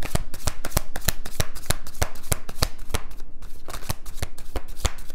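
A deck of tarot cards being shuffled by hand: a quick, even run of card slaps and clicks, about four a second.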